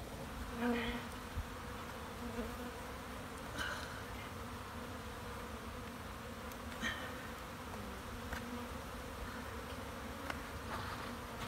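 A steady hum of many honeybees flying loose around a package of bees being installed into a hive, with a few faint clicks in between.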